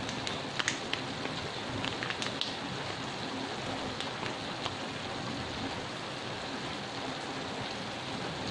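Diced vegetables with oyster sauce sizzling steadily in a hot aluminium wok, with a few small crackles in the first couple of seconds.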